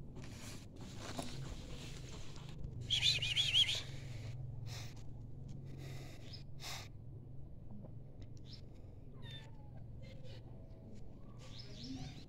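Cat meowing: one loud, high, wavering meow about three seconds in, then a few fainter, falling calls later on.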